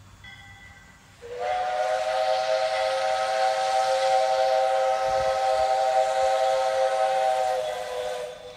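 Jeddo Coal No. 85 0-4-0T steam tank locomotive blowing its steam whistle in one long, steady blast of about seven seconds, with steam hiss, as it approaches a road crossing. The blast starts about a second in and stops suddenly near the end.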